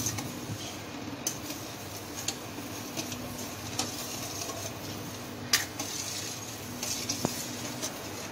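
Long steel spoon stirring sugar and water in a stainless-steel kadhai, scraping and clinking against the metal now and then, with one louder clink about halfway through, over a steady hiss. The sugar is being stirred over a medium flame to dissolve it into syrup.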